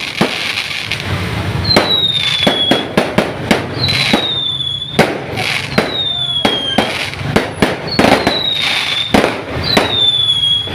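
Fireworks and firecrackers going off in a dense series of sharp cracks and bangs. A high whistle that drops slightly in pitch recurs about every two seconds.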